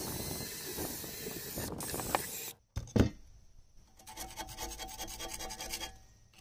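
Drill spinning a rust-removing wheel against a rusty cast iron stove door frame, stopping about two and a half seconds in. A sharp knock follows, then a screwdriver scraping rust out of the frame's grooves in quick strokes.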